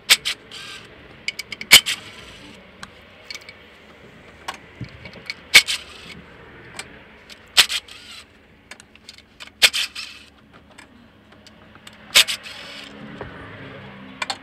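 Timing-cover bolts coming off a Toyota 1GR-FE V6: a series of sharp metallic clinks of socket, tool and loosened bolts, about every two seconds, several followed by a brief whirr of a cordless power tool.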